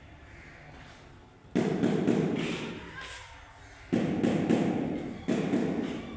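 Three sudden, loud, muffled thumps of noise, each dying away over a second or so, the first about a second and a half in and the others near the middle and end.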